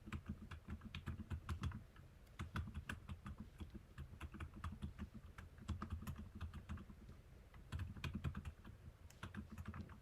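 Typing on a Keychron K2 v2 mechanical keyboard with lubed Outemu Silent Cream Yellow linear switches and SA-profile PBT keycaps: a fast run of soft, muffled keystrokes, with brief lulls now and then. The board carries silent O-rings, foam and tape mods, which dampen the clack.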